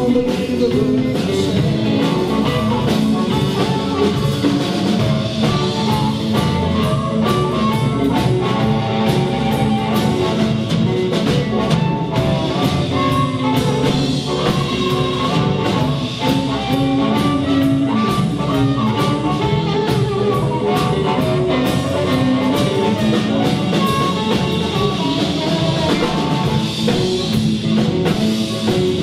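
Live blues band playing an instrumental passage: electric guitar over bass and drum kit, with no singing.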